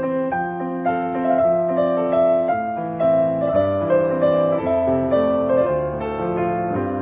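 Background piano music, a steady flow of sustained notes and chords.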